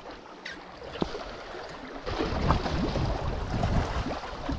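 Wind buffeting the microphone and sea water sloshing against shore rocks, the rumbling gusts getting louder about two seconds in.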